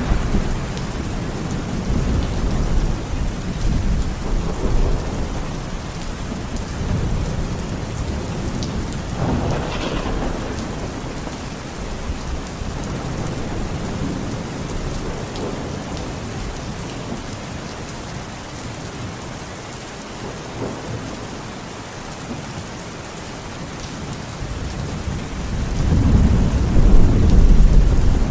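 Steady rain with rolling thunder. Low rumbles at the start fade away, a short burst comes about ten seconds in, and the thunder builds again to its loudest near the end.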